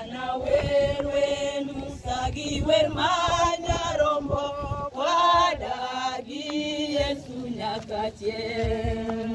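A group of mourners, men and women together, singing a hymn in a local language.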